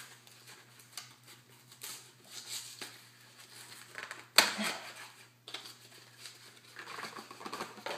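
Cardboard box being handled and opened, with irregular rustling and scraping and a sharp knock about four and a half seconds in.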